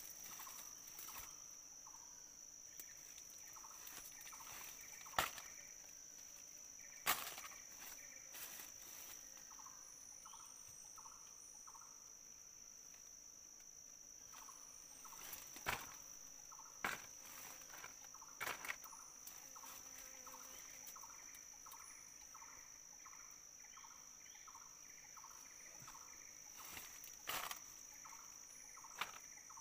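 A steady high-pitched insect drone, with a bird calling in runs of short repeated notes. Several sharp clicks or snaps sound over them, the loudest about five and seven seconds in.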